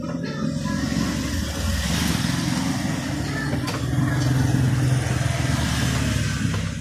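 Motorcycle engine passing by on the street, swelling to its loudest about four to five seconds in.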